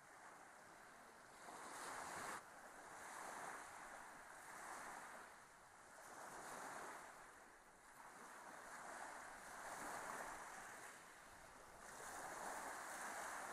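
Faint wind rushing in gusts that swell and fade every second or two.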